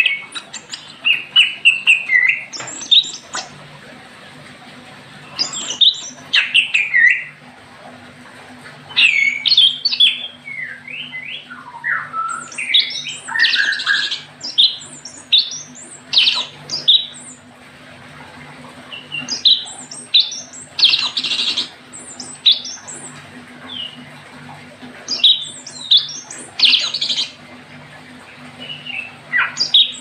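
Recorded songbird calls played from a small box speaker set inside an empty bamboo birdcage: phrases of whistles, chirps and squawky notes, coming in bursts every second or two, over a faint steady low hum.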